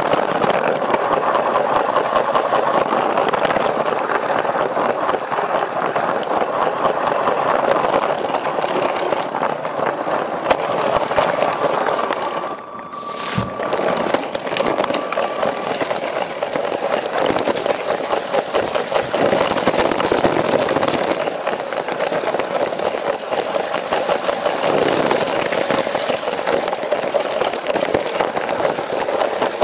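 Lego passenger train's small electric motor running and its plastic wheels clattering along Lego track, heard right up close from on board as a steady rattling whir of rapid clicks. The sound dips briefly about halfway through.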